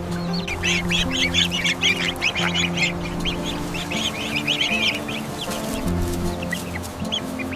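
Background music with held notes, under a flock of poultry calling in rapid, high, overlapping chirps and clucks that thin out after about five seconds.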